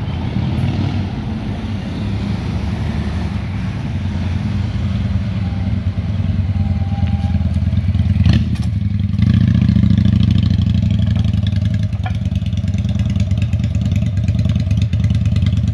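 Motorcycle engine running through its original exhaust with the baffle removed, a full-bodied note that is not very loud. It gets louder about nine seconds in.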